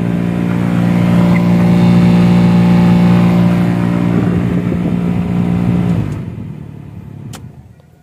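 Maruti Suzuki Alto's cabin blower fan running at its top speed setting with a loud, steady hum and vibration through the dashboard. This is the sign of a blower fault that also leaves the airflow weak. The hum dies away over the last two seconds.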